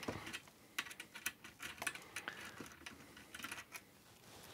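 Faint, irregular small clicks and ticks from a precision screwdriver working the screws out of the Amiga 600 motherboard's rear connectors, metal bit on metal screw.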